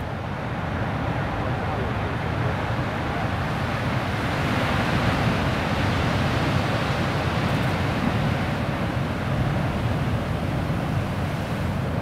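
Steady roar of wind and heavy ocean surf, a little louder in the middle.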